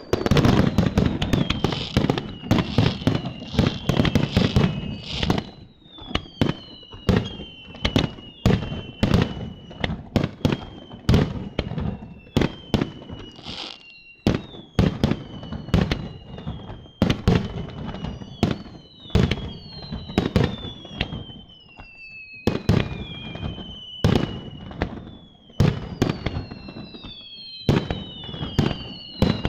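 Aerial fireworks display: a rapid string of sharp bangs from bursting shells, densest at the start, with many high whistles sliding down in pitch between them.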